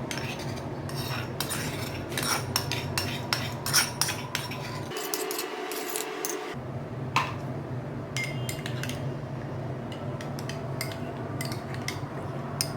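A spoon scraping and clinking against a small metal tadka pan while thick homemade syrup is scooped out of it, with many short clicks and scrapes. A steady low hum runs underneath and cuts out for about a second and a half around five seconds in.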